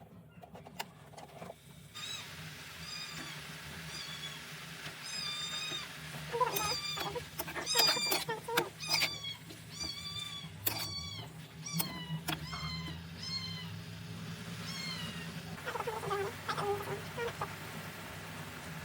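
Repeated short, high-pitched animal calls, each falling in pitch, with a few lower cries and scattered sharp knocks, over a steady low hum.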